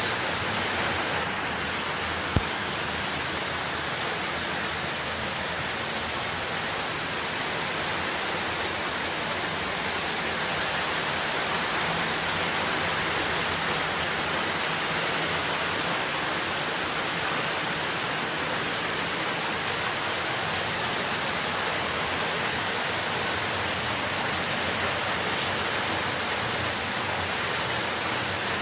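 Steady, heavy rainfall hissing evenly, with one sharp tap about two seconds in.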